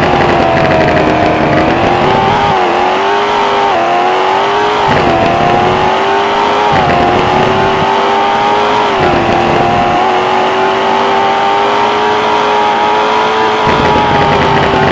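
Maserati Levante Trofeo's twin-turbo V8 running loudly at a fairly steady high pitch. The note wavers a little every couple of seconds, creeps gradually higher, then eases down slightly near the end.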